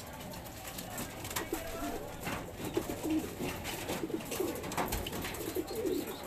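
Several racing pigeons cooing, low wavering coos overlapping one another, with scattered light clicks and taps.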